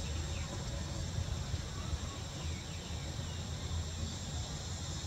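Steady outdoor insect chorus, an even high buzzing hiss, over a low steady rumble.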